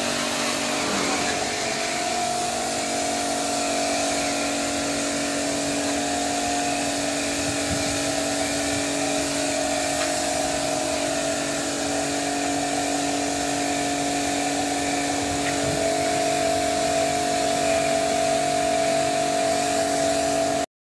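Agrimate pressure washer running steadily: a constant motor-and-pump hum with the hiss of the high-pressure water jet from the spray lance. It cuts off abruptly at the end.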